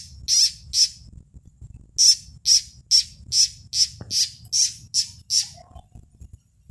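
A frog's distress screams as it is seized by a snake: short, shrill calls repeated about two or three times a second, with a pause of about a second after the first few. The calls stop about five and a half seconds in.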